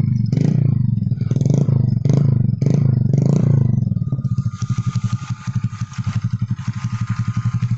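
Honda Click 150i scooter's single-cylinder engine through a Kawahara racing exhaust pipe with a silencer insert, blipped about six times in quick succession, then dropping to a steady, evenly pulsing idle about four seconds in.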